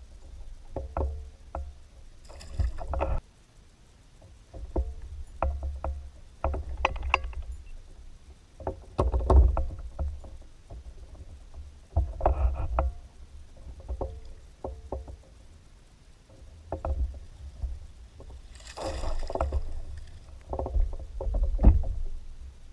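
Kayak paddle strokes: the blades splash in and out of the water with small knocks against the hull, about one stroke every two seconds.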